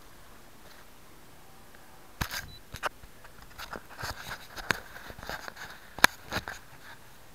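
Handling noise on an RC plane's onboard camera: a scattered run of clicks, knocks and rubs as fingers grip the fuselage next to the camera. It starts about two seconds in, and the sharpest knock comes about six seconds in.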